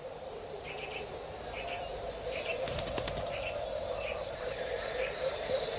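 A Eurasian hoopoe's wings flap in a brief flurry about three seconds in as it flutters up to a nest hole in a tree trunk. Under it, short chirps repeat a little faster than once a second.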